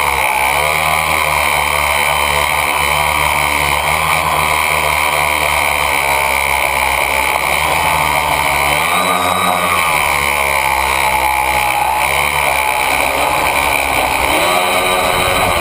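A tricopter's three electric motors and propellers whirring loud and close, heard from on board the craft. Their pitch dips and rises with the throttle about a second in, around nine seconds and again near the end.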